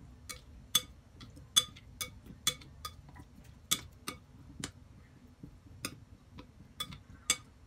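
Potato sticks being stirred by hand through batter in a glass mixing bowl, with irregular sharp clicks and taps against the glass, about a dozen of them.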